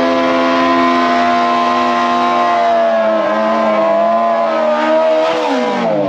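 Drag-racing sport bike's engine held at high revs at a steady pitch, wavering after about three seconds, then the revs falling away near the end.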